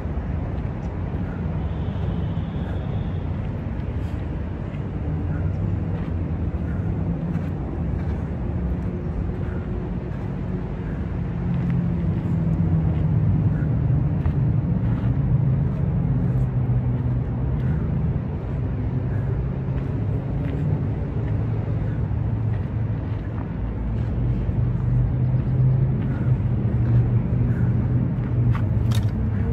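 Steady low rumble of city road traffic, swelling slightly now and then.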